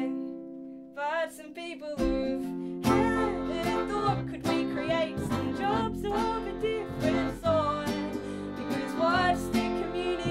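A folk trio of piano accordion, cittern and double bass playing. The first two seconds are thin, then the double bass comes in and the full band plays on.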